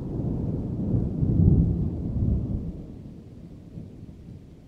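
Low rolling thunder rumble, swelling about a second and a half in, then fading away.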